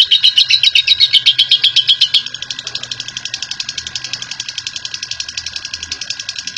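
Lovebird's long 'ngekek' chatter: a rapid, even trill of high chirps, about ten a second. It is loud for the first two seconds, then drops suddenly to a quieter level and keeps going.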